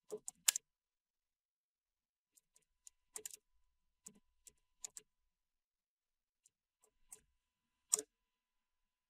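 Computer keyboard keystrokes typed slowly and unevenly: faint single key clicks and short runs of clicks with gaps between, the loudest click near the end.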